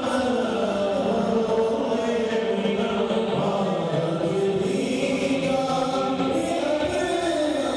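An Urdu naat being chanted: a devotional melody sung with long, drawn-out held notes.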